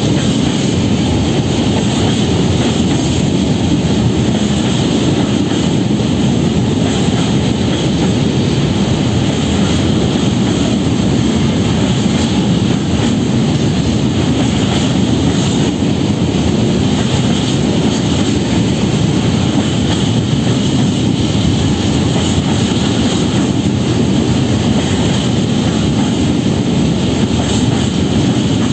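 Freight train of covered hopper wagons rolling past close by: a steady, loud rumble of wheels on the rails that holds without a break.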